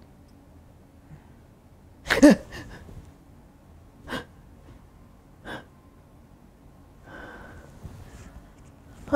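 A woman's short startled gasps and cries, each dropping in pitch: a loud one about two seconds in, smaller ones around four and five and a half seconds, and a breathy outbreath near the end.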